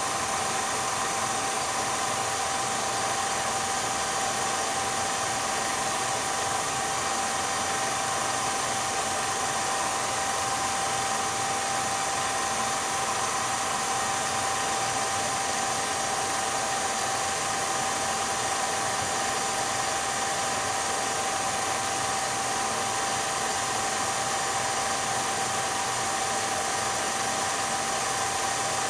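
Steady machine whir and hiss with one constant high tone, unchanging throughout: the running noise of a film projector's motor and fan as the silent 8mm film is played back.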